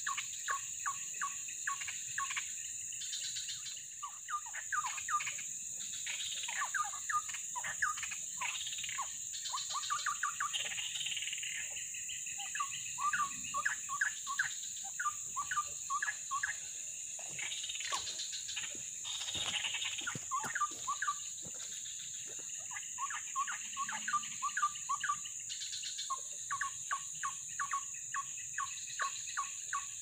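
Siung air bird song: bursts of quick, repeated chattering notes with short pauses, over a steady high insect drone.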